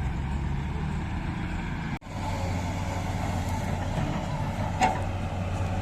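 Heavy diesel engine of earthmoving machinery running steadily, cut off for an instant about two seconds in, with one short sharp knock near the end.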